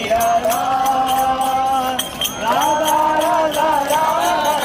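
Devotional chanting sung in long held notes, with a regular jingling beat of small bells or cymbals.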